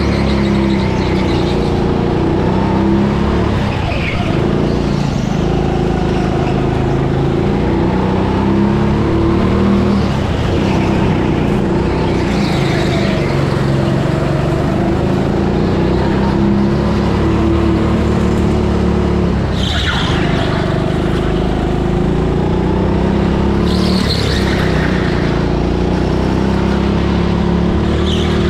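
A rental go-kart's motor running continuously at racing speed, heard from on board, its pitch rising and falling a little through the corners, with a few brief higher-pitched squeals along the way.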